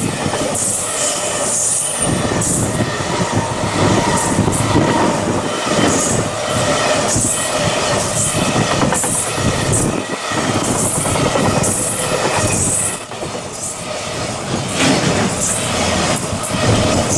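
Container freight train passing close by at speed: a loud, steady rumble and clatter of the wagons' wheels on the rails, with a high-pitched metallic squeal from the wheels on top.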